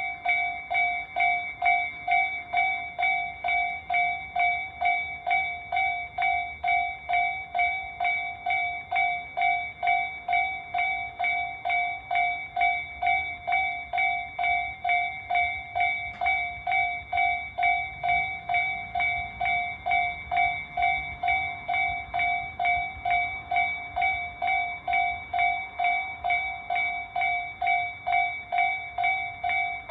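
Japanese level-crossing warning bell of the Tobu Tojo type, an electronic ding repeating about twice a second at a steady pitch.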